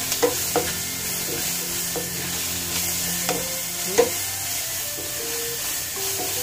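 Sliced onions, ginger and garlic sizzling steadily in hot coconut oil in a frying pan while a wooden spatula stirs and scrapes them, knocking against the pan several times, loudest about four seconds in. The onions are being sautéed soft, short of golden brown.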